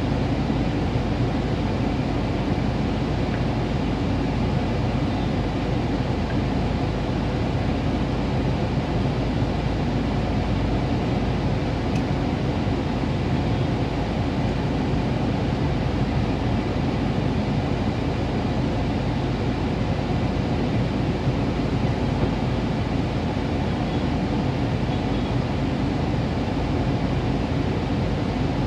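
Steady low rumble and hiss inside a car's cabin as the car stands still in traffic with its engine idling, picked up by a phone microphone.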